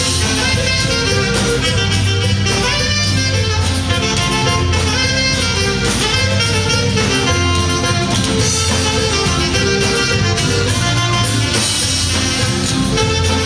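Live waila (chicken scratch) dance music: a band with saxophone and guitar over bass and drums playing a steady dance tune.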